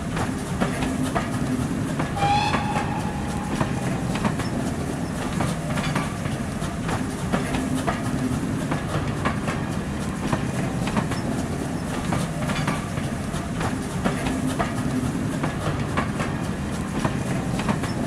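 Train carriages rolling past, with a steady low rumble and the wheels clicking over rail joints, plus a brief high-pitched tone about two seconds in.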